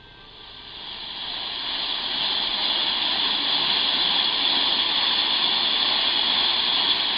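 Radio static: a steady hiss from a receiver with no programme signal. It swells over the first two seconds, then holds steady.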